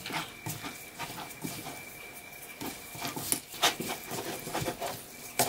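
Gloved hands tossing and squeezing raw chicken pieces in starch and flour in a glass bowl: soft, irregular rustling and squishing with light clicks, coating the meat in batter powder.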